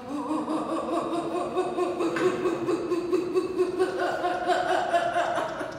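A woman's long held vocal sound at a fairly steady pitch, wavering with a fast, shaky flutter, as during uncontrollable jaw shaking. It starts suddenly and falls away near the end.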